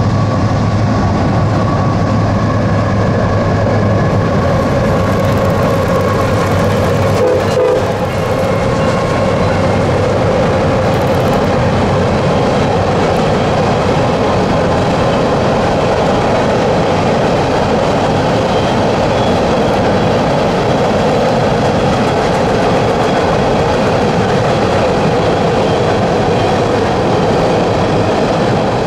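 Freight train of covered hopper cars rolling across a steel girder railway bridge: a steady rumble and clatter of wheels and cars, with a single clank about seven seconds in.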